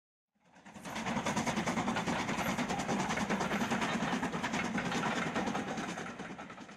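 Steam train running at speed, with a fast even beat of about six a second; it fades in about half a second in and fades out near the end.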